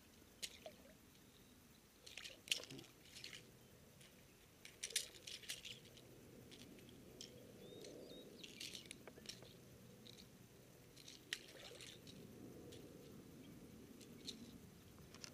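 Faint, scattered sharp clicks and small wet sounds from unhooking a northern pike with metal fishing pliers: pliers and lure hooks clicking, with water splashing and dripping.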